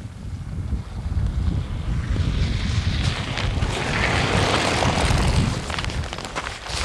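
Wind buffeting the camcorder microphone: a steady low rumble, with a louder rushing gust swelling through the middle and easing off.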